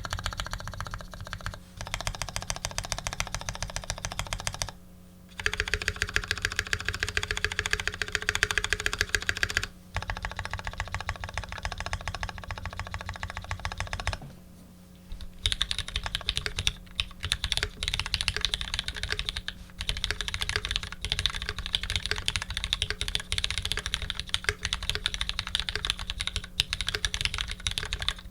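Custom Dolinger re mechanical keyboard being typed on quickly: lubed Retooled Black linear switches on a 2 mm aluminium plate under GMK keycaps. The keystrokes come in dense runs broken by three short pauses.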